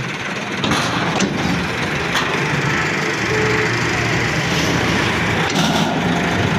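A tractor's engine running under load as a heavy tractor trolley's wheels roll up onto a lowbed trailer's wooden plank deck, with a few sharp cracks and creaks from the planks.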